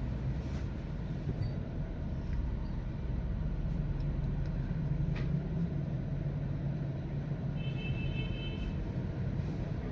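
Toyota Corolla Grande's 1.8-litre four-cylinder engine idling unevenly with a misfire: one cylinder is not firing. A brief electronic beep sounds about eight seconds in.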